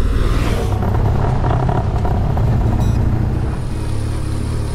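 Adventure motorcycle riding along a gravel track: engine running and tyres on dirt, under a heavy, steady low rumble. A brief rushing hiss comes in the first half-second.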